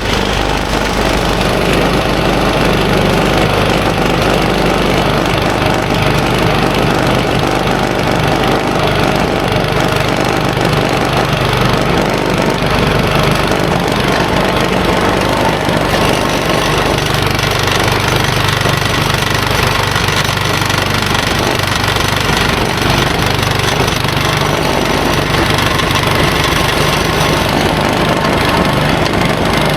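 Craftsman two-stage snowblower's small gas engine running steadily after starting up, its note shifting a little about halfway through.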